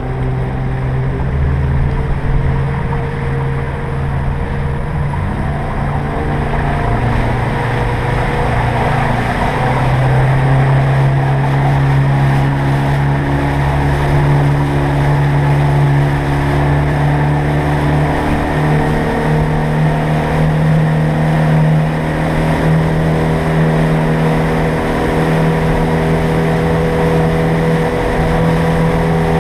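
A small fishing boat's engine running under way, with the wash of water over it. The engine note steps up a little about a third of the way in and again past the middle as the boat gathers speed.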